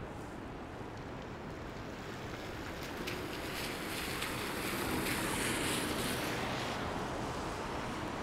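Steady city street noise. A vehicle passes on a wet, snowy street: its tyre hiss swells from about three seconds in and fades again near the end.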